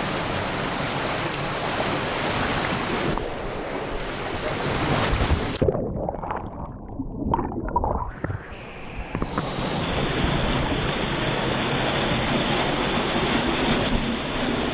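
Rushing waterfall water, a loud steady hiss. About halfway through it goes muffled and gurgling for some three seconds, then the full hiss comes back.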